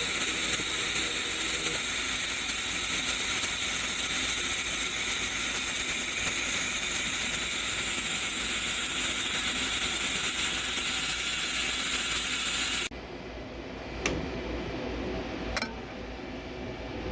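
Automatic weaving weld on a stainless-steel pipe flange: a steady, loud arc hiss that cuts off suddenly about 13 seconds in, the end of the weld pass. Two sharp clicks follow over the quieter hum of the machine.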